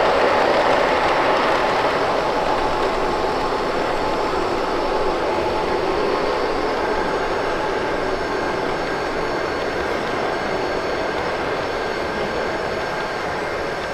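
G-scale model steam locomotive and its freight cars rolling along the layout track, making a steady running noise that fades slightly as the train moves on.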